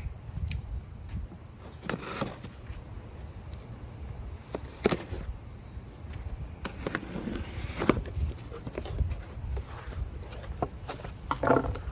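A cardboard shipping box being opened and its contents handled: scattered knocks, scrapes and rustling, with a longer stretch of rustling or tearing about seven seconds in.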